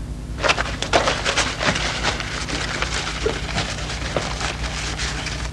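A sheet of paper crackling and rustling as it is unfolded and handled, a dense run of crisp crackles starting about half a second in.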